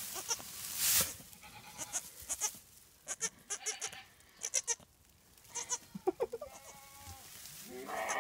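Newborn Angora kid goat moving about in straw bedding: rustling and short clicks through the first half, loudest about a second in, then a soft bleat about six seconds in.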